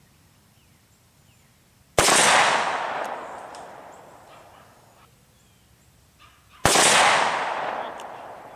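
Two .357 Magnum pistol shots about four and a half seconds apart, each a sharp crack followed by a long echo that dies away over about three seconds. Neither sets off the Tannerite target.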